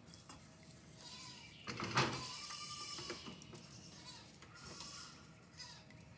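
Goats bleating several times, with a sharp knock about two seconds in, the loudest sound.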